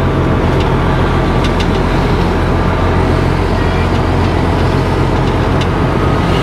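Tractor-unit truck's diesel engine running at a steady cruise with road noise, heard from inside the cab: a steady low drone.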